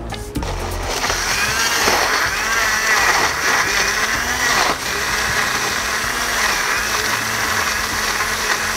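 Electric countertop blender running, puréeing chopped fruit with curd and milk into a smooth liquid. It comes up to full speed about a second in and runs steadily.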